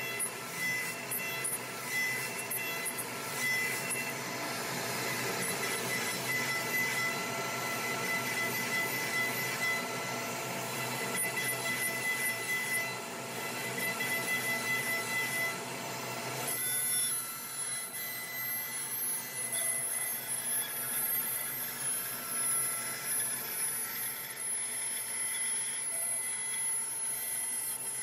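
CNC router spindle running a 3/8-inch compression spiral bit through a wooden dashboard panel, a steady machining noise with a high whine, over the dust extraction. The tone changes abruptly about two-thirds of the way through.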